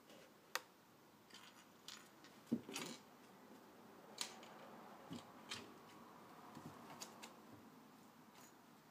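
A cat pawing and scrabbling at a cloth on a wooden floor: faint, irregular clicks of claws snagging the fabric and tapping the floorboards, with a brief rustle and scratch of cloth nearly three seconds in.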